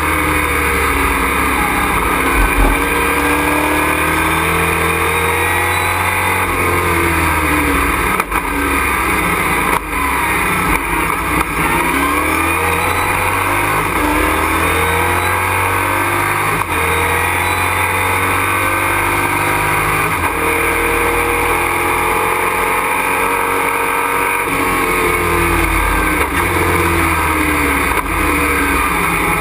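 Race truck's engine at full racing effort, heard from inside the cockpit, its pitch repeatedly climbing through the revs and then falling away at gear changes and braking, over a steady road and wind noise.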